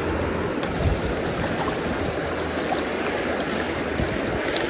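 Steady rush of a shallow freestone river flowing over cobbles.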